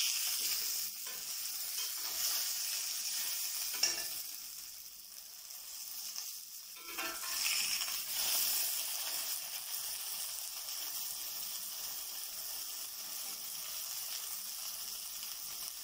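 Beef burger patty sizzling steadily as it fries and browns in oil in a stainless-steel pan over medium heat. A metal spatula clicks sharply against the pan about four seconds in, and the sizzle swells briefly a little past halfway as the patty is lifted.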